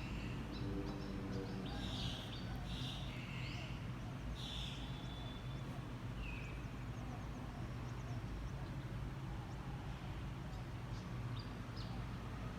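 A few short, high chirps at irregular intervals over a steady low hum.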